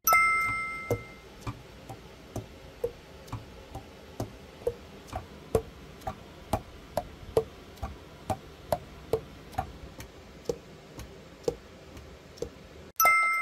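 Alto saxophone keys pressed and released over and over, the pads clicking shut on their tone holes at a steady rate of about two clicks a second. The keys of this freshly repadded Selmer Super Action 80 Series II seal tightly. A short ringing tone sounds at the start and again near the end.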